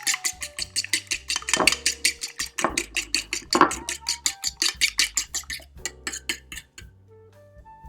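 Eggs being beaten in a bowl: a fast, even clatter of about six strokes a second against the bowl, with three heavier strokes in the middle, stopping about seven seconds in. Soft background music plays underneath.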